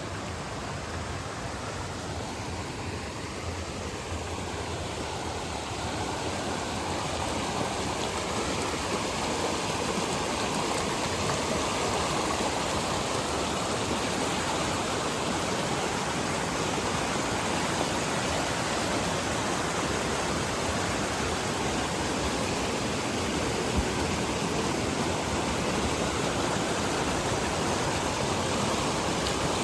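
Steady rush of a waterfall's water, growing louder about six seconds in, then holding.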